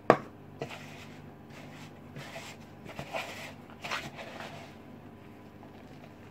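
Hands squeezing and pressing soft biscuit dough in a plastic mixing bowl, gathering the crumbly leftovers with a little water: soft squishing and rubbing sounds in a few swells. A sharp knock just at the start is the loudest sound.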